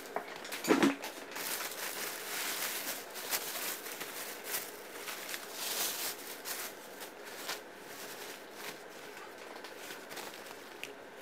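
Thin plastic carrier bag crinkling and rustling as it is handled and pulled away from the drill, with a short, louder knock about a second in.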